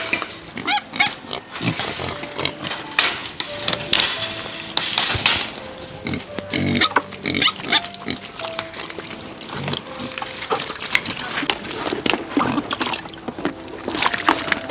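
Piglets squealing and grunting again and again as they crowd for feed, with scattered knocks and clatter.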